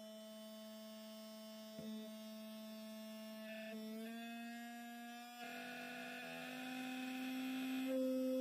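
Steady electric motor whine from the rig spinning neodymium magnets for eddy-current heating. Its pitch steps up a little a few times and it grows louder toward the end as the motor speeds up.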